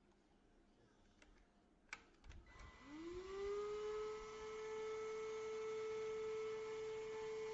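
ENOLUX K7 Pro cordless stick vacuum switched on with a click, its motor spinning up in a rising whine that settles into a steady running whine.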